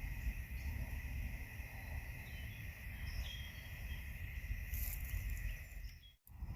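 Outdoor pondside ambience: a steady high-pitched insect drone over a low rumble of wind on the microphone, with a few short chirps in the middle. The sound cuts out briefly near the end.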